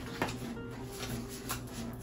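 Quiet plucked-guitar background music, with a short sharp papery sound about a quarter second in as a page of a large hardcover picture book is turned.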